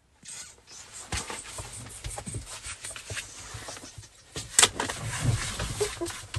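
Close rustling, rubbing and bumping of a padded jacket and dog fur as a border collie turns and presses against a person's chest, with irregular knocks of handling noise on the phone microphone.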